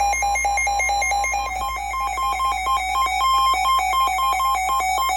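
Weather alert tone: a rapid, steady electronic beeping, about seven or eight beeps a second, mostly on one pitch with a higher beep mixed in. It sounds ahead of a severe thunderstorm warning on NOAA Weather Radio.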